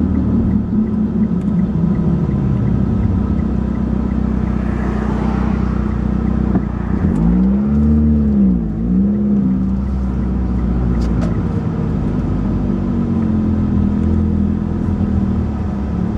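Turbocharged car engine with a leaking exhaust running steadily while driving. About seven seconds in, the engine note dips and rises a couple of times before settling again.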